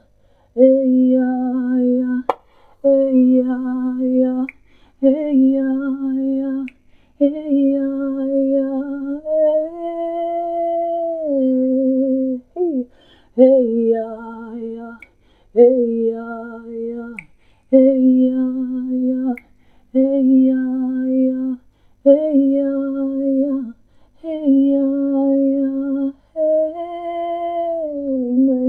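A woman's unaccompanied voice singing slow, held wordless notes, in short phrases of one to two seconds with brief breaths between.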